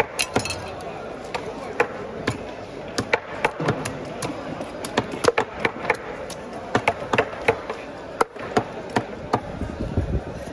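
Large knife scraping the scales off a whole trevally: a quick, irregular run of sharp scraping clicks, several a second.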